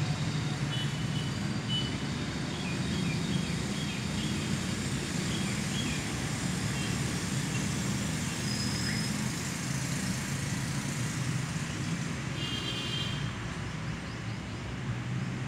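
Steady low hum of distant road traffic, with a few faint high chirps in the first seconds and a short high-pitched tone near the end.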